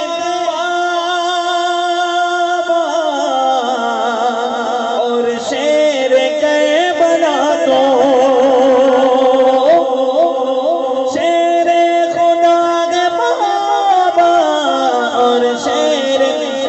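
A man singing an Urdu devotional manqabat into a microphone, drawing out long held notes that waver and glide in pitch.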